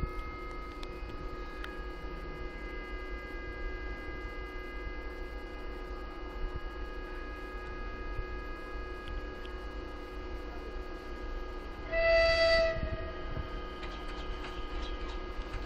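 An approaching ZSSK class 381 locomotive sounds one short horn blast about twelve seconds in, over a steady whine of several high tones and a low hum.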